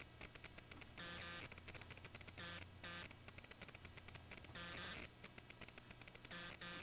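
Faint crackling static, with a buzzing hum that comes and goes a few times, each stretch lasting about half a second.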